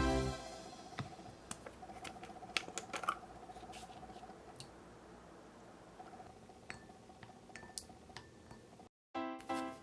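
Scattered small clicks and taps over a faint steady buzz. A short dead silence near the end, then music starts.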